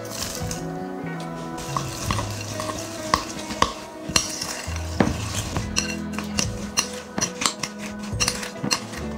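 Metal spoon stirring chopped walnuts into a thick chocolate mixture in a glass bowl, clinking and scraping against the glass; the clinks come faster and more often in the second half. Soft background music runs underneath.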